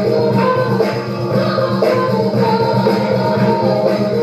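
Live band music with singing: a pop-song cover performed by a group.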